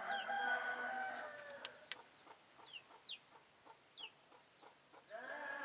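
Animal calls: a long, drawn-out pitched call, then a few short, high, falling peeps and faint ticks, then another long call starting near the end.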